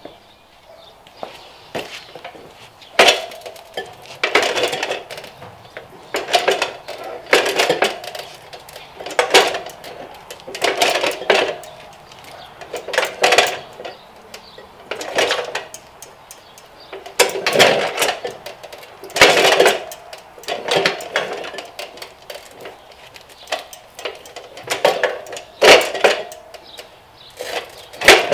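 Steel tire irons prying the bead of a dirt bike's rear tire off its wheel rim: repeated metal clanks and clinks against the rim, with rubber scraping, every second or two.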